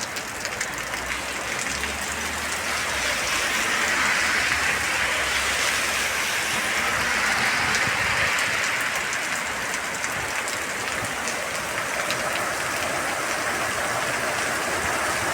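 Very heavy rain pouring down in a steady, dense hiss, growing heavier a few seconds in and then easing slightly.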